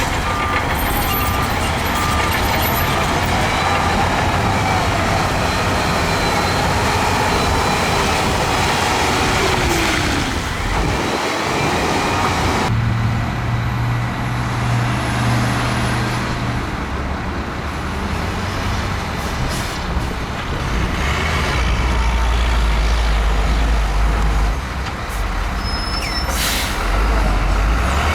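Heavy diesel earthmoving machinery and dump trucks running under load. A reversing alarm beeps steadily over the first few seconds, the sound changes abruptly about halfway through, and there is a short hiss near the end.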